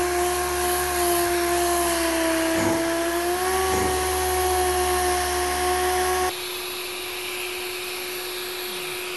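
Dust-extracted orbital sander sanding dried body filler on a plastic car bumper: a steady motor whine over the hiss of the abrasive disc on the filler. About six seconds in, the low rumble cuts off abruptly and the sound drops in level, while the whine holds steady.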